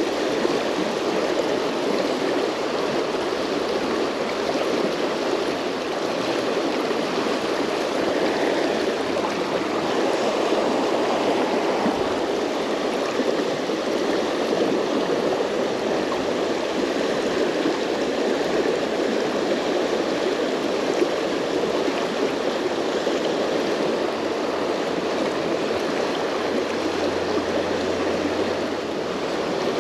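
Fast river water rushing over a shallow, rocky run, making a steady, even rushing.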